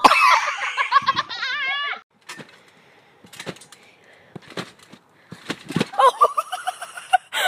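High-pitched, wavering laughter in two spells: a loud one lasting about two seconds at the start and another near the end. Soft clicks and knocks fall between them.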